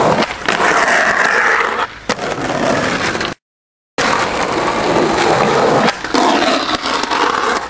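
Skateboard wheels rolling loudly over rough concrete, with several sharp clacks of the board striking the ground and a concrete ledge. The board rides onto the ledge about six seconds in. The sound cuts out completely for about half a second near the middle.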